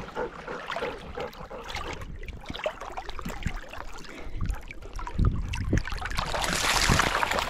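Shallow lagoon water splashing and sloshing as golden retrievers wade and swim through it, with wind rumbling on the microphone. A louder, hissing splash comes near the end.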